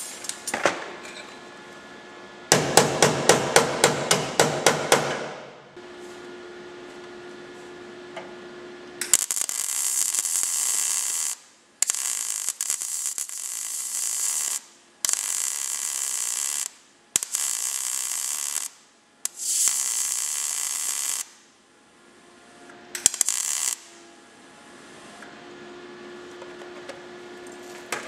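MIG welder plug-welding car body sheet steel in a stop-start way, the arc crackling and hissing in five short runs of about two seconds with brief breaks between them and one shorter zap after. Before the welding, a quick run of about a dozen taps on the panel, about five a second.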